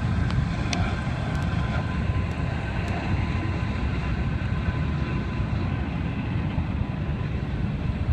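Freight train rolling past: a steady low rumble of wheels on rail with a faint, steady high-pitched squeal over it.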